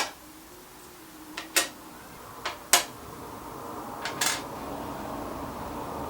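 Several sharp knocks and clacks, as of wood and tools being handled, then a steady whooshing noise that builds from about three seconds in.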